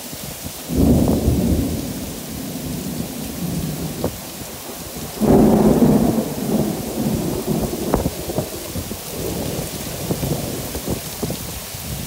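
Heavy rain falling steadily, with thunder rumbling. The thunder comes in two loud surges, one starting about a second in and another about five seconds in, each rolling on and fading unevenly.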